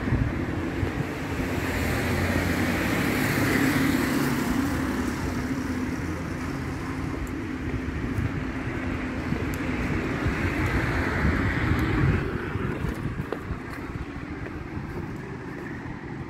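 Street traffic: a motor vehicle's engine runs close by with a steady rush of road noise. It swells a few seconds in and drops away about twelve seconds in.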